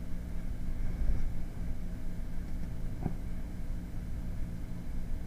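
Steady low hum and hiss of background noise, with one faint short click about three seconds in.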